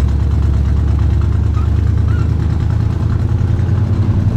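Squarebody GMC truck's engine, fitted with an oversized camshaft, running steadily at low speed.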